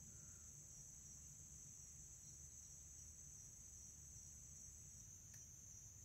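Faint, steady, high-pitched chorus of insects, over a low background rumble.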